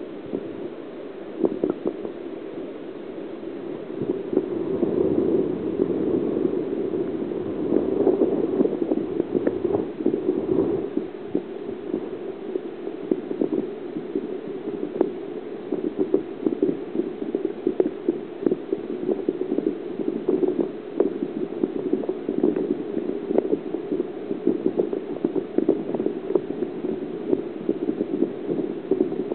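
Water churning with many small splashes as perch feed at the surface in a feeding frenzy; it is a little busier a few seconds in.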